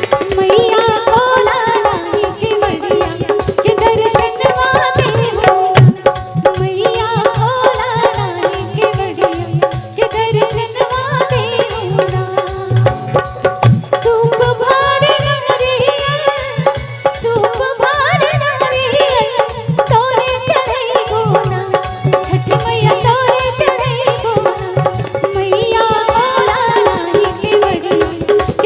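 Live Chhath folk song: a woman singing a melody over dense, steady hand-drum beats and accompanying instruments.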